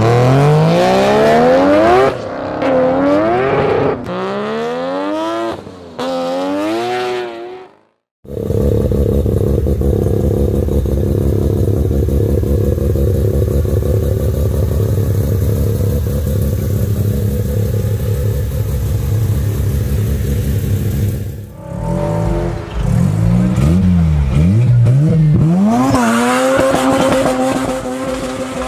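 Mazda RX-7 rotary (Wankel) engines in a string of short clips. First a car accelerates, its pitch climbing and dropping back several times. After a brief cut, an engine runs at a steady pitch for about thirteen seconds. Then another revs up and down and settles into a steady pitch near the end.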